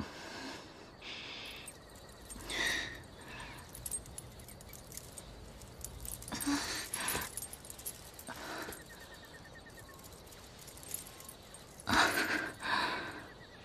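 A woman's pained, breathy gasps and whimpers: a few short ones spread out with quiet between, the loudest near the end.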